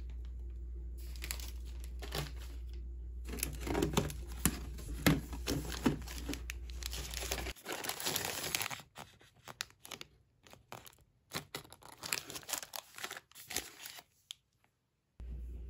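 Plastic bread packets crinkling and rustling as hands rummage through them in a wicker basket, in irregular bursts that stop briefly near the end.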